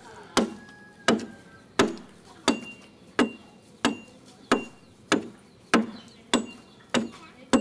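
A bladed hand tool chopping into the wood of a dugout canoe hull as it is hollowed out: a steady run of sharp strikes, about three every two seconds, twelve in all.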